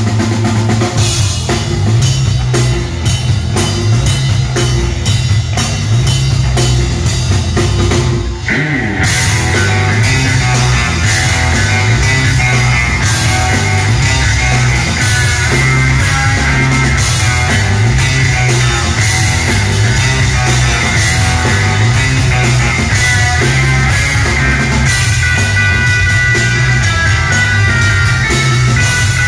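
Live rock band of electric guitar, bass guitar and drum kit playing. A brief break comes about eight seconds in, after which a lead guitar line of held high notes runs over the drums and bass.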